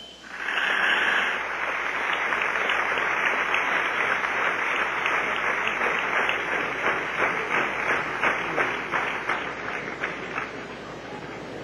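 Audience applauding. The sound starts abruptly and is dense at first; from about halfway it breaks into more distinct individual claps, then thins toward the end.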